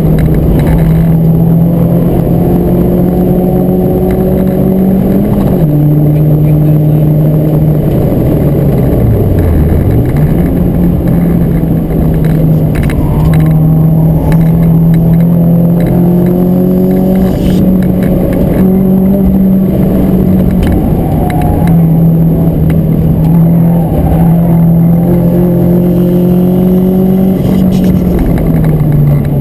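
Renault Clio 172 Cup's 2.0-litre four-cylinder engine running hard under load on track, heard loud inside the cabin. The revs hold high with gear changes: the pitch steps down about five seconds in, dips sharply and climbs back around nine to ten seconds, and falls again near the end.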